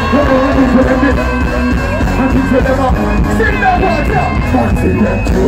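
Live dancehall music through a concert PA: a vocalist singing and chanting into a microphone over a heavy, bass-led beat, with crowd noise underneath.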